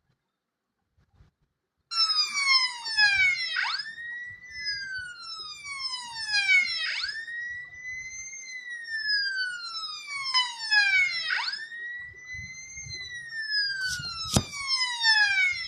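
Ambulance siren in wail mode, starting about two seconds in. Its pitch slowly rises, falls in a long sweep and snaps back up, about every four seconds. There is a sharp click near the end, and the siren cuts off abruptly.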